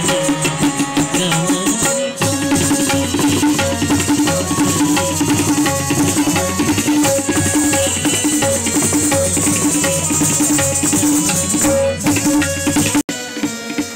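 Indian music led by tabla drumming in a quick, steady rhythm with pitched strokes. About 13 seconds in it cuts off abruptly and picks up again as a quieter passage.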